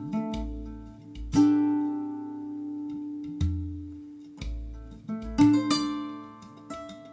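Recorded guitar music played back through a pair of large JBL loudspeakers: plucked notes that ring out and decay over deep bass notes.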